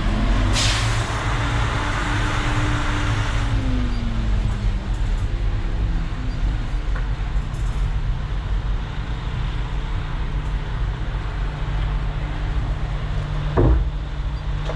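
Concrete mixer truck's diesel engine running steadily, its pitch sliding down in the first few seconds. A burst of hiss starts about half a second in and lasts about three seconds, and there is a single sharp knock near the end.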